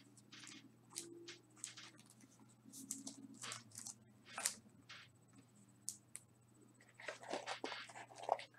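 Trading cards and pack wrappers being handled: faint, short rustles and crackles at irregular moments, coming closer together near the end.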